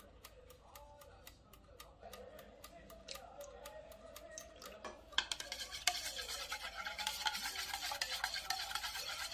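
Beaten eggs, milk and sugar being stirred briskly in a ceramic bowl: a fast, scraping clatter of a utensil against the bowl that starts about five seconds in and is the loudest sound. Before it, faint music with an even tick.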